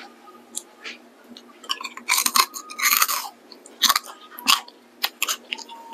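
A person chewing a crisp, crunchy snack close to the microphone: irregular crunches, sparse at first and coming in quick clusters from about two seconds in.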